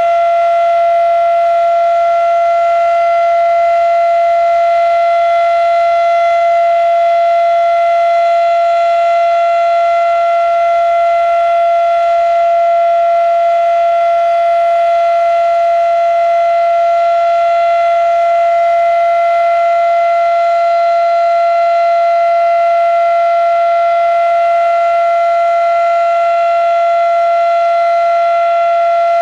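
Fedelcode Model 7 electromechanical outdoor warning siren sounding a steady Alert signal. It holds one loud, unwavering tone near 700 Hz with a six-port undertone and no rise or fall in pitch.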